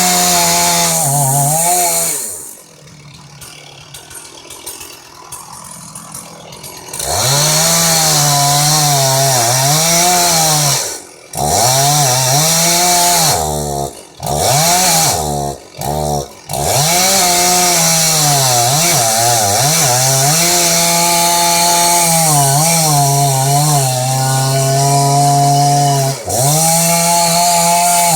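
Chainsaw engine running at high revs, its pitch bending up and down as the throttle is worked. It drops to a much lower level for about four seconds near the start and dips briefly several times around the middle before running at full revs again.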